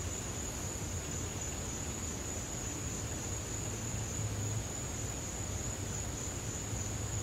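Crickets trilling in a steady, high-pitched chorus, with a low hum underneath.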